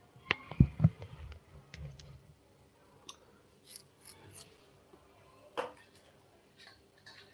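Scattered sharp clicks and light knocks: a quick cluster in the first second, a few faint high ticks in the middle, and one louder click about five and a half seconds in.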